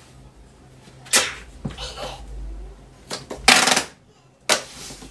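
Duct tape being pulled off the roll in several short, loud rips and pressed onto a cardboard box. The longest and loudest rip comes about three and a half seconds in.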